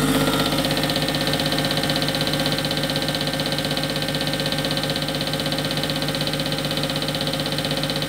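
Hartridge Sabre diesel injector test bench running its automatic test on a Bosch piezo common-rail injector. The machine runs steadily, with a rapid, even ticking over a constant hum.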